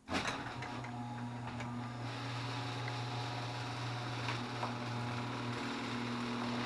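Electric garage door opener starting up abruptly and running, with a steady motor hum and scattered light clicks as the door travels.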